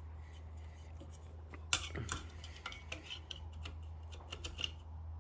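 Scattered light metal clicks and clinks from a cast-iron Stanley Bailey No. 7 hand plane being handled and adjusted, the loudest about a second and a half in, over a steady low hum.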